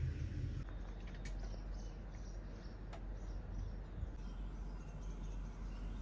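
A steady low rumble cuts off less than a second in, giving way to quiet outdoor ambience with a few faint bird chirps and a couple of soft clicks.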